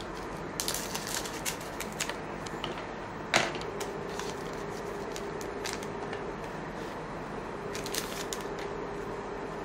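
A foil trading-card pack being opened and its cards handled: a run of irregular crinkles and small clicks, with a sharper one about a third of the way in and another cluster near the end.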